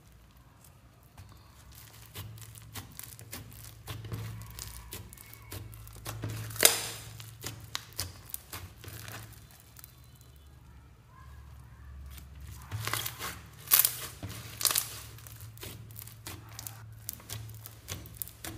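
Slime being squished and pulled by hand, making a run of sticky crackling pops and clicks with several louder snaps, over a low steady hum.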